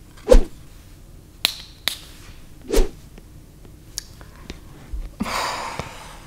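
A few short sharp clicks and taps from handling a small perfume sample vial and a paper test strip, then, about five seconds in, a long sniff as the strip is smelled.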